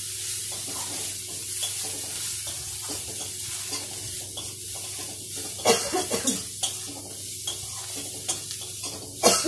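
Potatoes and onions sizzling as they fry in oil in a metal kadai, stirred with a metal spatula that scrapes and clinks against the pan. There are a few louder clanks about halfway through and again near the end.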